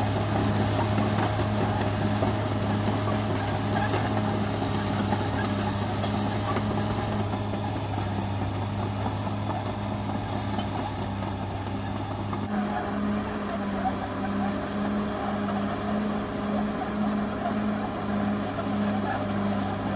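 Caterpillar D6R XL bulldozer's diesel engine running with a steady low drone and a pulsing beat, with scattered light high-pitched ticks over it. The sound shifts abruptly a little after halfway through.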